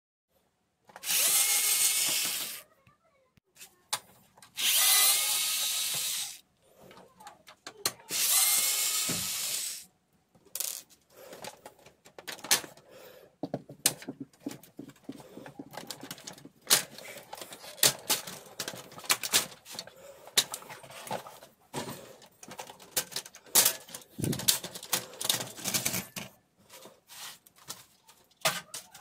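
Cordless electric screwdriver run in three bursts of about two seconds each, backing out screws from a laser printer's rear cover. After that comes a long run of short clicks and knocks of the plastic printer casing being handled.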